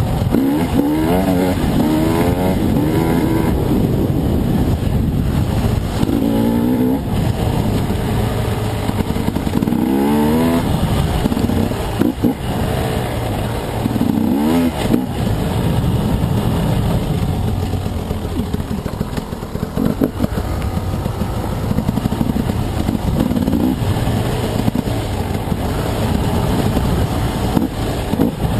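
Husqvarna dirt bike engine running under the rider, revving up and dropping back again and again as it is ridden along a rough trail, with a rising rev every few seconds over a steady engine rumble.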